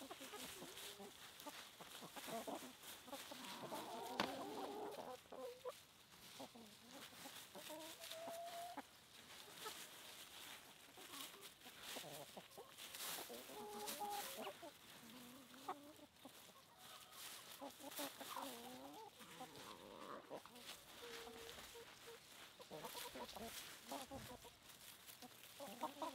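A flock of chickens clucking softly, with short calls scattered throughout and frequent faint clicks.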